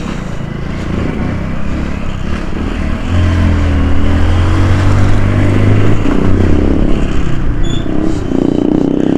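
Small single-cylinder 100 cc motorcycle engine running while riding through street traffic, getting louder about three seconds in as it pulls harder, then easing off near the end.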